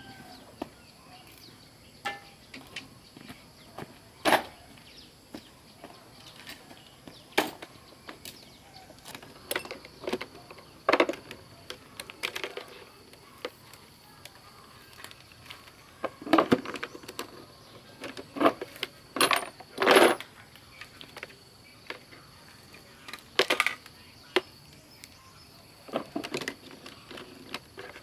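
Irregular clicks, taps and clatters of small hard objects being handled, about a dozen spread unevenly, some in quick clusters.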